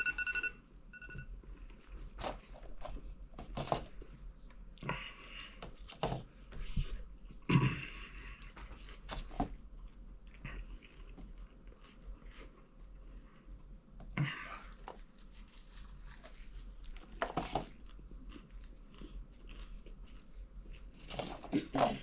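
Someone chewing a mouthful of crunchy popcorn, with irregular crunches and a few louder bites and mouth noises.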